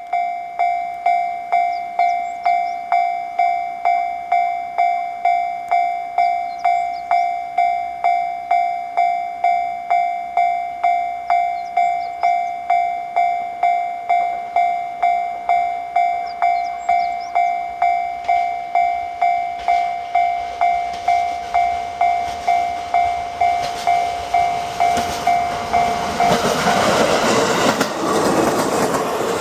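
Japanese level-crossing alarm ringing its steady electronic two-tone bell a little under twice a second, warning of an approaching train. Then a Shinano Railway SR1 series electric train comes up with a rising rumble and passes over the crossing near the end, loud enough to drown out the bell.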